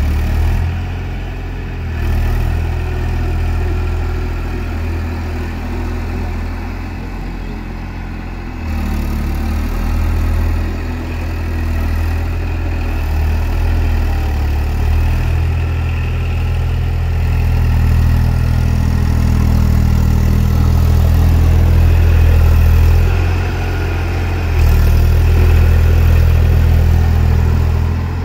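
Eicher tractor's diesel engine running under load as the tractor churns through deep paddy-field mud. The engine note rises and falls with the throttle, dips briefly near the end, then picks up again.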